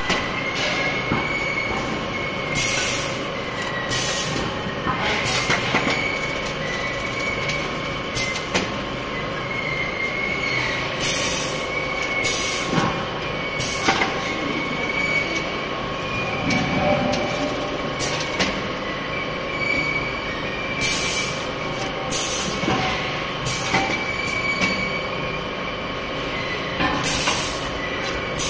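LPG cylinder filling-line conveyor running, with steady rolling and clattering of the steel cylinders on the rollers and a high squeal that comes and goes. Short hisses of air, typical of pneumatic actuators, break in every few seconds.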